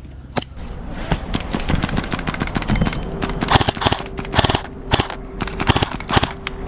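Airsoft guns firing in an exchange of fire: irregular single shots and quick strings of sharp cracks, thickest in two rapid clusters a few seconds in.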